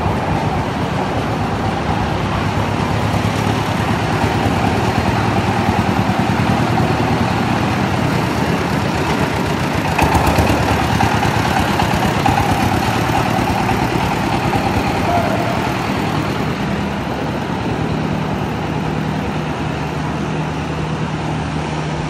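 Diesel engines of concrete-pumping machinery running steadily, a continuous loud drone with a low steady hum.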